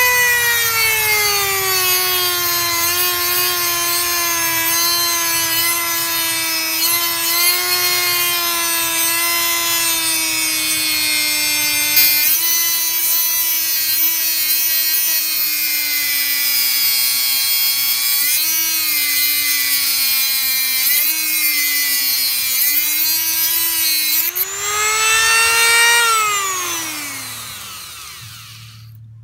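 Single-speed Dremel rotary tool with a cutoff wheel cutting through a metal chassis cross member: a loud motor whine with a grinding hiss, its pitch sagging and wavering as the wheel bites. Near the end, as the cut goes through, the pitch climbs back up, then the tool is switched off and winds down, the whine falling away.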